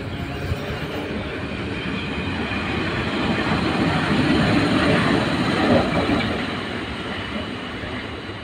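PKP Cargo EU07 electric locomotive passing close by while shunting. Its running noise swells to a peak about two-thirds of the way through as it goes by, then fades as it moves away.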